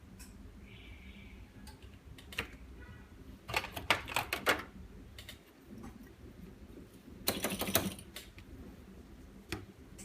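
Light clicking and clattering of small hard parts being handled and set down, in two quick flurries with a few single clicks between.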